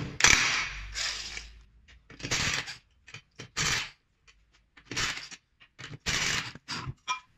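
Impact wrench hammering wheel bolts loose in several short bursts, with light metallic clicks of loosened bolts being handled between them.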